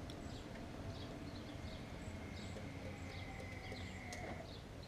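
Outdoor background with small birds chirping repeatedly and a low steady rumble, and a faint steady high tone lasting about two seconds near the end.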